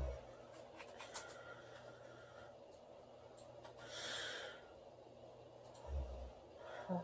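A woman snoring faintly in her sleep: short low snores at the start and about six seconds in, with a noisy breath between them about four seconds in. Faint clicks are scattered through it.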